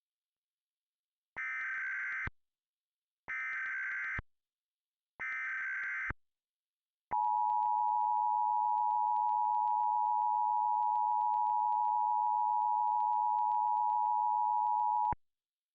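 Emergency Alert System tones. First come three short bursts of the SAME digital header data, a buzzy screech about a second each. Then the EAS attention signal, a steady two-tone beep around 853 and 960 Hz, sounds for about eight seconds before cutting off abruptly. This is the signal that an emergency alert message is about to be broadcast.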